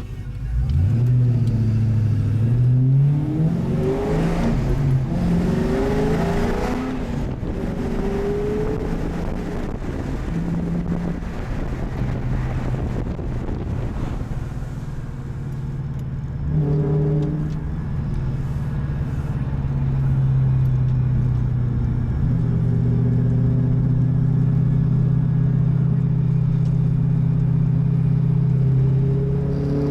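A 2005 Pontiac GTO's 6.0-litre LS2 V8 heard from inside the cabin, breathing through Kooks headers and a Spintech 2.5-inch stainless exhaust. The engine note climbs under acceleration over the first several seconds. After a brief rise just past halfway it settles into a steady cruising drone.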